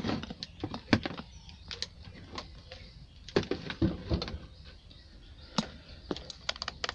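Scattered light clicks and taps at irregular spacing, from an analog multimeter being set to its 10 range and its probes being handled over the TV's circuit board.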